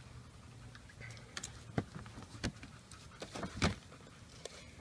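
Light taps and rustling as a spiral-bound handbook and other books and papers are handled in a box, with a few sharp clicks about two, two and a half, and three and a half seconds in.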